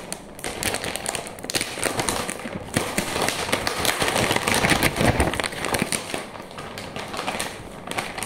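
A clear plastic bag crinkling and crackling as it is handled and opened, loudest in the middle.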